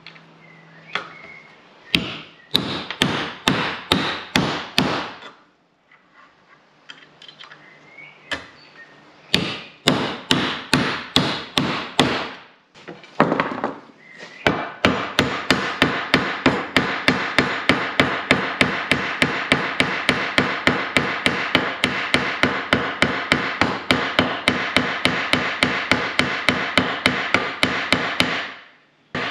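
Hand hammer striking a copper boat nail and rove to set a copper rivet through oak framing. It comes as two short bursts of blows, then a long steady run of quick taps, about four a second, that stops shortly before the end.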